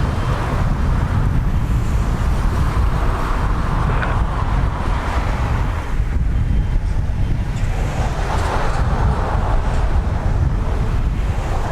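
Strong gusty wind buffeting the microphone: a loud, uneven low rumble with a rushing hiss that swells and eases several times.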